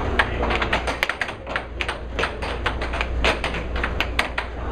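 Air hockey puck clacking rapidly off the players' mallets and the table's rails in a fast rally, several sharp hits a second at uneven spacing. Under it runs the steady low hum of the air table's blower.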